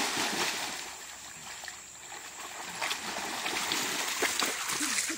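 A Lab/coonhound mix splashing through shallow creek water, wading and paddling. The splashing eases about a second and a half in and builds again from about three seconds.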